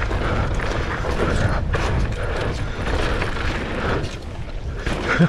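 Mountain bike riding down a dirt trail: a continuous clatter and rattle of the bike over rough ground, with a low rumble underneath and a sharp knock just before the end.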